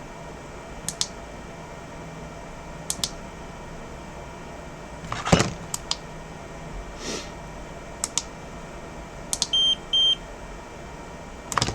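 Two short electronic beeps in quick succession, from a display data programmer used to read and write an iPhone screen's data. Scattered small clicks and taps of handling come before and after.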